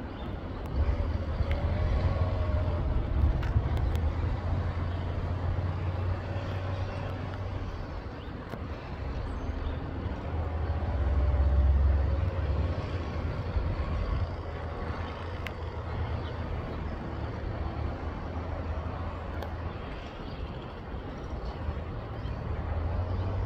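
A steady low rumble of distant engines, swelling about halfway through, with faint wavering engine tones above it.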